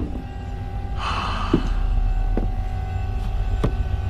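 A low steady hum with a thin high tone running through it. A brief rustling hiss comes about a second in, followed by a few faint clicks.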